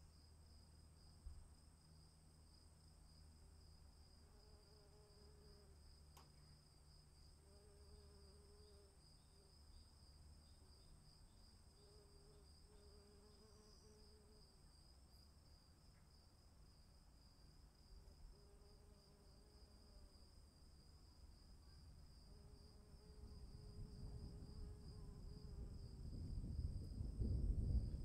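Crickets chirping in a steady, pulsing high trill, while a low rumble of distant thunder builds over the last several seconds and becomes the loudest sound near the end.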